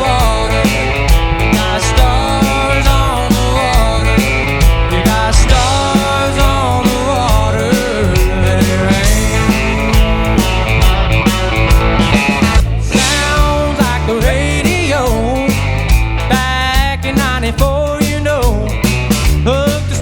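Band music with drums, bass and a melody line whose notes bend and slide in pitch.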